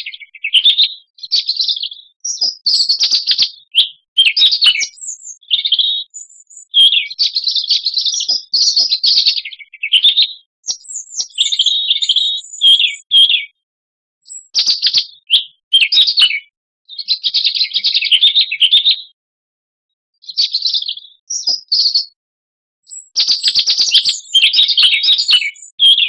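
European robin singing: a string of varied warbling phrases, each a second or two long, mixed with some thin high notes and separated by brief silences.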